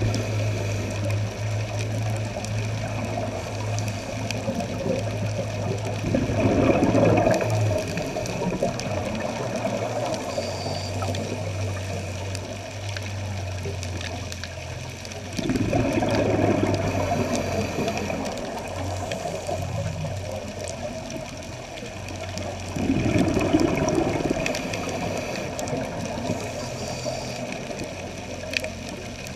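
Underwater sound of scuba breathing: a diver's regulator exhalations bubbling out in three surges about eight seconds apart, over a steady low hum.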